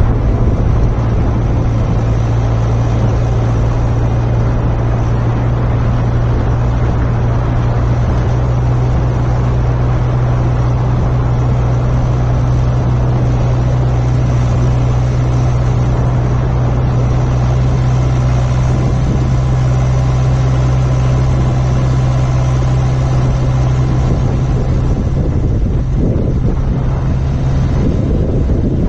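John Deere 6400 tractor's diesel engine running at a steady speed, a constant low hum.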